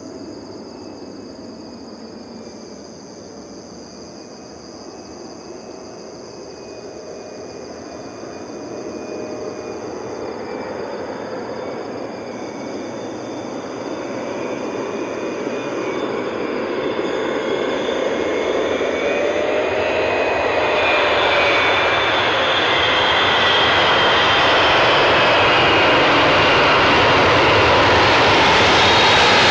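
Air New Zealand Boeing 777-300ER's twin GE90-115B turbofans on landing approach, the jet noise growing steadily louder as the airliner comes in over the runway. A whining engine tone wavers in pitch through it.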